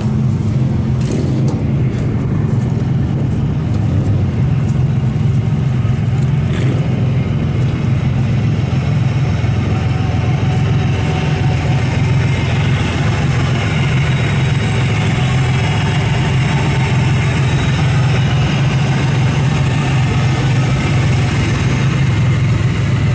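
Demolition derby car engine running loud and steady, with a few sharp clicks in the first several seconds.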